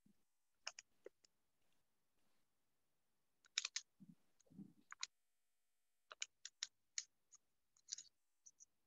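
Faint, scattered clicks, a few at a time, over near silence, like computer keys or buttons being pressed. There are two soft low sounds near the middle.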